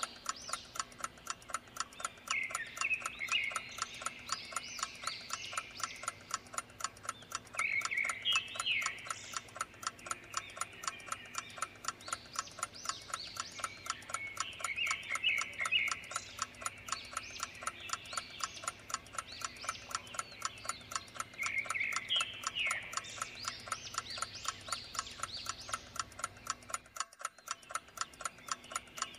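A clock ticking steadily, with bursts of high chirping over it every few seconds. The background briefly cuts out near the end.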